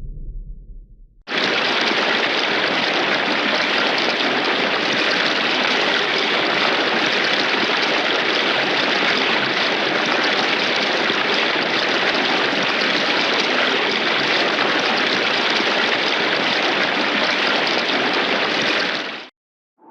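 Heavy rain, a dense, even hiss that starts abruptly and cuts off sharply near the end. A low rumble fades out just before it.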